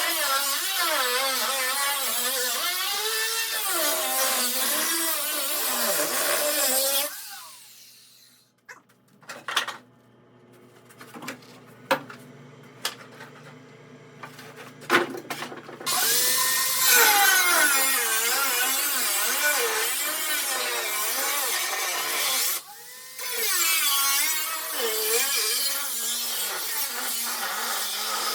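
A handheld power tool cutting the sheet metal of a Jeep cab, its motor pitch wavering as the load changes. It stops about a quarter of the way in, leaving a few clicks and knocks, starts again past the halfway mark, and cuts out briefly once more near the end.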